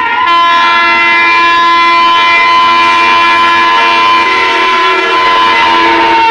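Indian Railways train horn sounding one long, loud blast of several notes at once, held steadily throughout.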